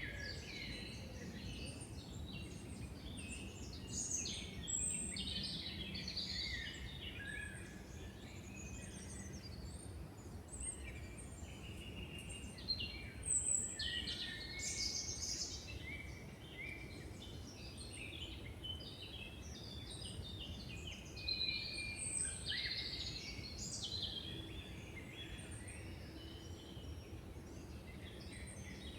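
Several songbirds singing at once in woodland, a dense overlapping run of chirps and trills, over a steady low background rumble.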